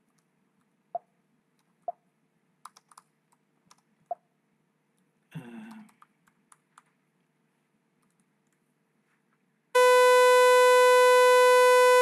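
Laptop keystrokes and clicks, then near the end a loud, steady, unwavering tone with a full set of harmonics starts abruptly: a sawtooth wave synthesised additively from a bank of CORDIC sine oscillators, their outputs weighted and summed.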